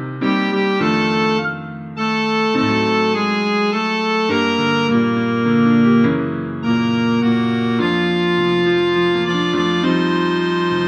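Organ tone playing the four choir parts (soprano, alto, tenor, bass) of a hymn arrangement in steady held chords, over a piano accompaniment.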